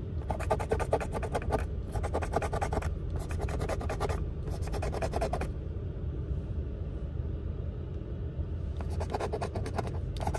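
A coin scraping the coating off a lottery scratch-off ticket: four quick bouts of rapid scratching strokes, a pause of about three seconds, then scratching again near the end. A steady low rumble runs underneath.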